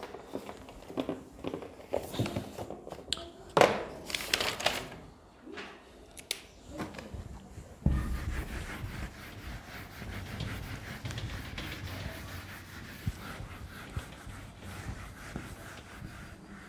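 A duster rubbing across a whiteboard to wipe it clean, a steady scrubbing from about eight seconds in, preceded by scattered knocks and rustles.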